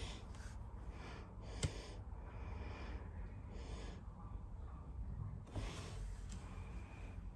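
Breathing through the nose close to the microphone, with one sharp plastic click about one and a half seconds in as a fuse bead is pressed onto a pegboard.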